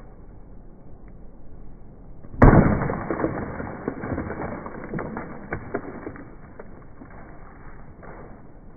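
One heavy smash about two and a half seconds in, followed by a few seconds of pieces clattering and breaking as the debris settles.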